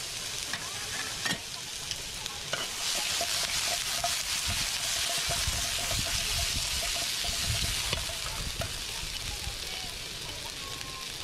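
Chicken wings sizzling in a frying pan over a camp burner: a steady dense sizzle with small pops and crackles, loudest in the middle and easing slightly near the end.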